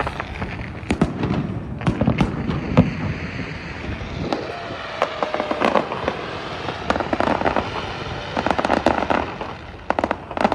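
Fireworks display: aerial shells bursting one after another in sharp bangs, with a dense run of crackling pops about three-quarters of the way through.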